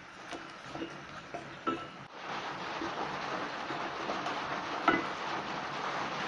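A wooden spoon stirs flour into hot fat in a stainless steel pot, tapping and scraping against the pot in separate knocks. After about two seconds a steady hiss takes over and slowly grows louder, with one sharp knock of the spoon on the pot about five seconds in.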